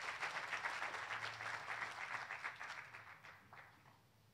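Audience applauding a speaker's introduction; the clapping thins out and dies away about three and a half seconds in.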